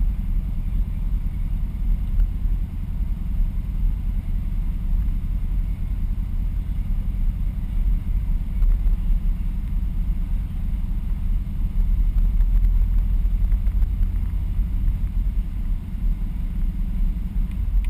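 Ford Bronco 4x4's engine idling while the truck sits stationary, a steady low rumble.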